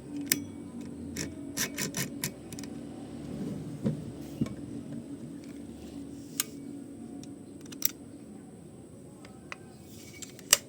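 Sharp mechanical clicks and clacks from an LCT AKS74N airsoft rifle being handled: a quick cluster in the first couple of seconds, then single clicks every second or two, the sharpest near the end.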